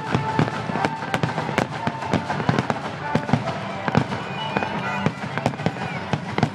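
Rapid barrage of aerial firework shells bursting, several sharp bangs a second, with orchestral music playing underneath.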